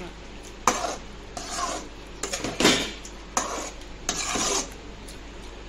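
Metal slotted spatula scraping and knocking against an aluminium kadai while stirring a thick mutton and potato masala: a series of scrapes with sharp clinks every second or so, easing off near the end.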